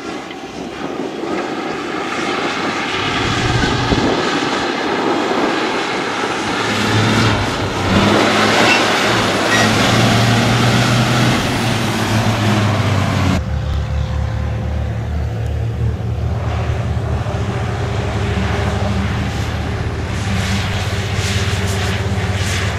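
MAN rally truck's diesel engine running hard as the truck drives over sand, growing louder and higher over the first half. About halfway in there is an abrupt change to a lower, steadier engine note.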